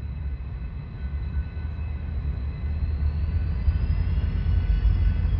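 Two EMD diesel locomotives, an SD70 leading an SD60M, approaching with a deep engine rumble that grows steadily louder as they near.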